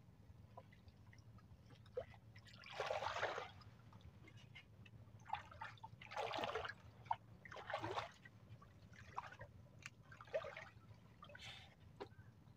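Water splashing and sloshing in a series of short bursts, the longest about three seconds in.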